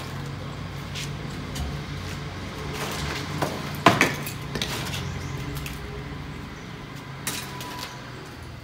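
Dry split firewood sticks knocking and clattering against each other as they are pulled from a stacked woodpile: a string of sharp irregular knocks, the loudest about four seconds in. A steady low hum runs underneath.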